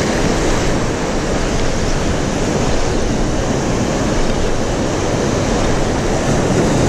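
Sea surf breaking and washing over rocks, with wind buffeting the microphone: a steady, loud rush of noise.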